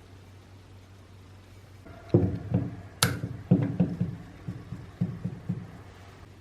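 A string of irregular knocks and clunks, like parts being handled or tapped, with one sharp click about three seconds in, over a steady low hum.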